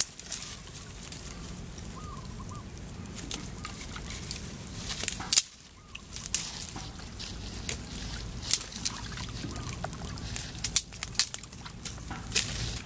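Wood fire crackling, with sharp, irregular pops and snaps from the burning logs over a steady low rumble.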